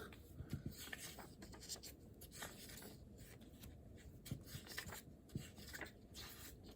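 Faint scratching of writing on paper: short, irregular pen strokes with occasional small taps.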